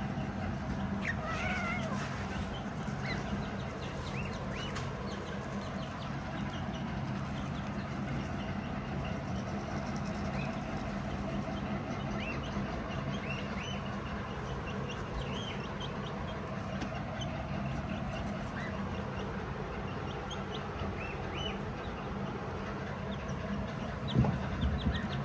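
Kittens mewing faintly in short, high calls every few seconds over a steady low hum, with a couple of bumps near the end.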